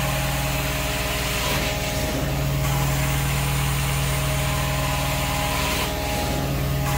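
Hot-water carpet extraction machine running steadily with a low hum, its wand hissing and rushing as it sprays and sucks water from the carpet. The rushing changes in tone about two seconds in and again near the end as the wand moves.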